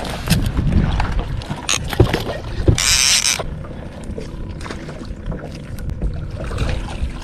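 Steady low rumble of wind and water around a small fishing boat, with scattered knocks and a brief burst of hiss about three seconds in.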